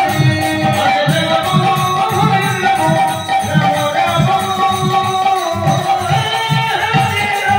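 Kirtan devotional music: a hand drum beating a steady rhythm with jingling cymbals under a sustained melodic line.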